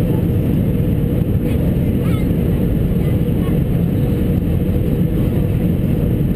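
Steady jet airliner cabin noise on approach, heard from a window seat over the wing: a constant rumble of engines and airflow with a steady hum.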